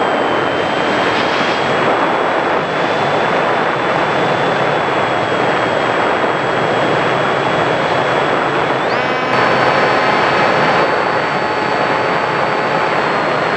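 Sky Surfer RC plane's electric motor and propeller heard from its onboard camera in flight: a steady high whine over a loud rush of wind and propeller noise. The whine steps to a higher pitch about nine seconds in.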